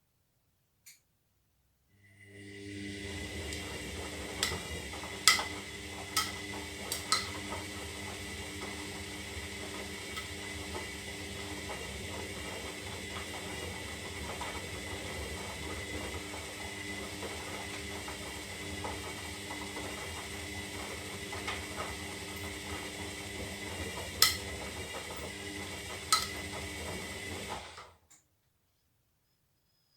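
Zanussi Lindo 300 washing machine's motor starting up and running steadily with a whine for about 26 seconds during a synthetic wash, with a few sharp clicks and knocks, then stopping suddenly, as in one tumble of the wash phase.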